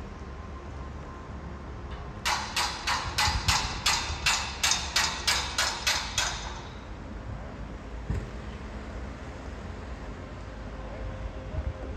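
A quick run of about a dozen sharp, evenly spaced strikes, about three a second, lasting about four seconds, then one more single knock a couple of seconds later.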